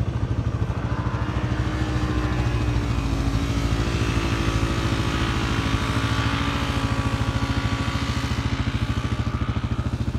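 A vehicle engine running steadily with a regular pulsing beat. A fainter engine note rises and falls through the middle.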